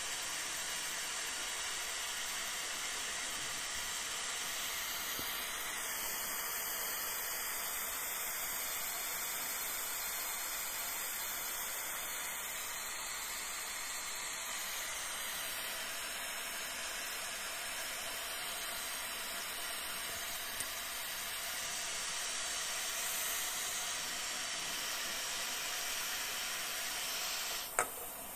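Small gas jet torch burning with a steady hiss, its blue flame blasting against an aluminium drink can. One sharp knock near the end.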